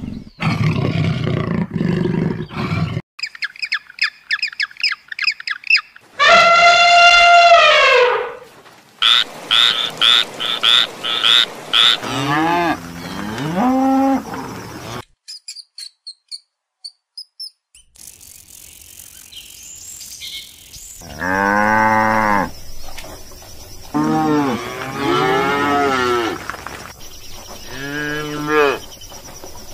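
Cattle mooing: several long, drawn-out moos through the second half. The first third holds a different animal's high-pitched, rapidly repeated chirping calls and one loud call that falls away at its end.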